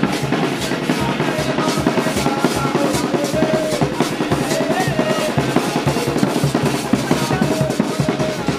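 A group of drummers playing a fast, steady rhythm on hand drums.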